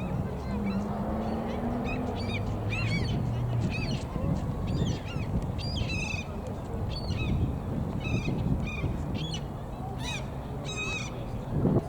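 Water birds calling, with many short honking calls in quick irregular succession over a steady low rumble.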